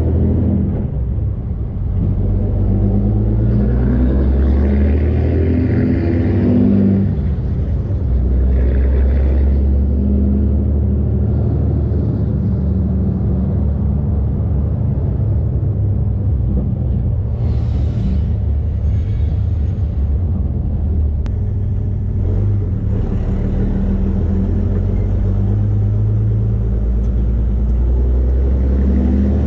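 2013 Ram's 6.7-litre Cummins inline-six turbo diesel running steadily while the truck is driven, its low drone changing pitch a few times as engine speed changes.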